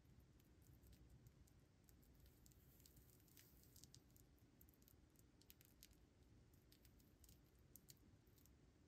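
Near silence: a faint low room hum with scattered faint small ticks from a steel mesh watch bracelet being handled.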